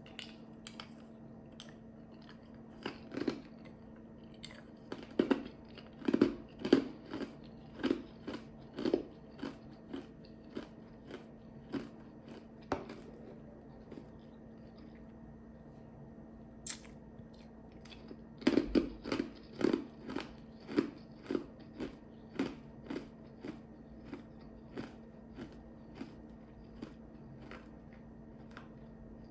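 Ice chips crunched between the teeth: two runs of sharp, quick crunches, each loudest and fastest at the start and slowing to single bites as the mouthful is chewed down. A steady faint hum runs underneath.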